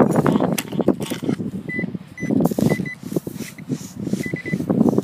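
Metal detector sounding a run of short high beeps, in little groups, over loud crunching and scraping of dry grass and soil close to the microphone.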